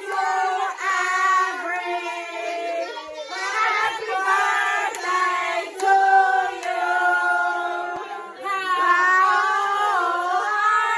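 A group of people singing together, with held, sustained notes.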